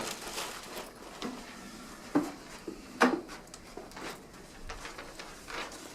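Scattered light clicks, knocks and rustles of objects being handled as people tidy up a room, with two sharper knocks about two and three seconds in.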